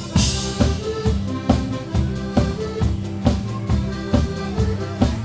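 Instrumental break of a live East Coast-style rock song: fiddle melody over drums and bass, the drum kit keeping a steady beat of about two strokes a second, with a cymbal crash at the start.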